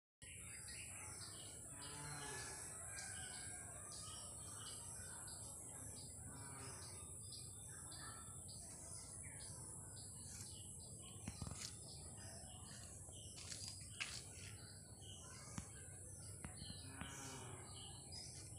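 Birds chirping and calling, many short chirps throughout, over a steady high hiss. A few sharp clicks in the second half.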